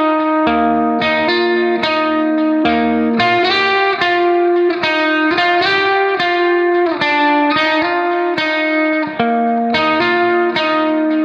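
Background music: plucked guitar playing a steady melody, about two notes a second, over bass notes.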